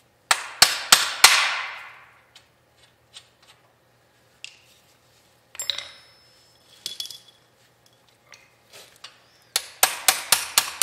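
Hammer on the steel front spindle of a 1930 Model A Ford: four sharp, ringing metal blows in the first second or so, then scattered clinks of steel tools being handled. Near the end comes a quick run of hammer blows, about four a second, working at a stuck kingpin.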